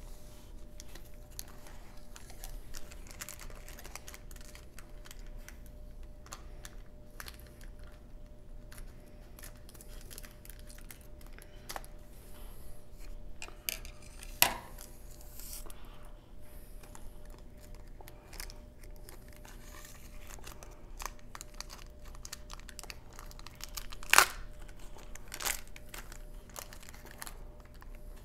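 Wax-paper wrapper of a 1990 Score baseball card pack crinkling and tearing as it is handled and opened by hand, with a few louder sharp rips or snaps, about halfway through and again near the end.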